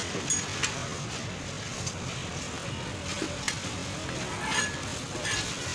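Busy street-market background noise, with a few sharp taps and clinks of a knife and metal scraper on a cutting board.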